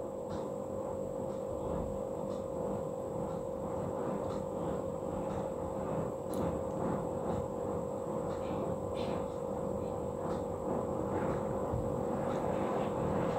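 Tempering frying in hot oil in a steel kadai: scattered small crackles and pops from the mustard seeds, dal and red chillies, over a steady low hum.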